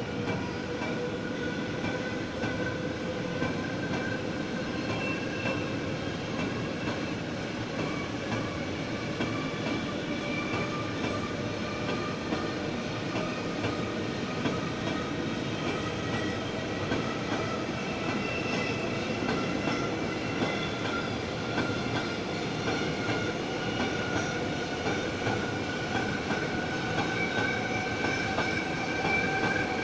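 Freight train of empty double-deck car-transport wagons rolling past at slow speed: a steady rumble of wheels on rail with faint high squealing tones that drift slowly in pitch, growing a little louder near the end.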